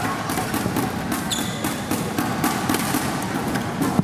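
Badminton rally: sharp racket hits on the shuttlecock and players' footwork on the court, repeated every fraction of a second, over the steady background noise of a crowd in the hall.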